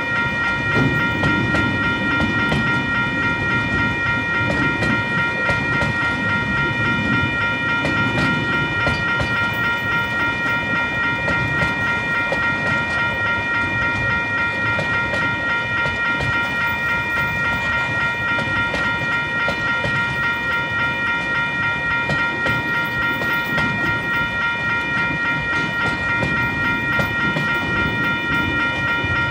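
Freight train wagons rolling steadily across a level crossing, wheels clattering over the rail joints, while the crossing's warning bell rings continuously over them.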